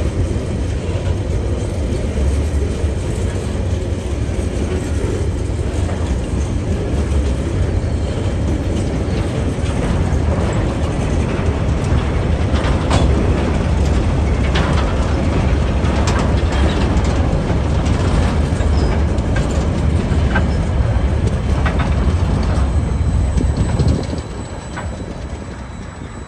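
Freight train wagons rolling past close by, container flats and then coal hopper wagons: a steady heavy rumble of wheels on rail with scattered clicks and clanks. The noise drops away suddenly near the end as the last wagon passes.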